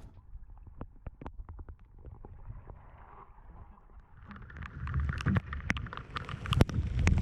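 Outdoor sounds on a small boat: wind on the microphone, water against the hull, and scattered light knocks. Quiet at first, then the wind and water grow louder from about four seconds in.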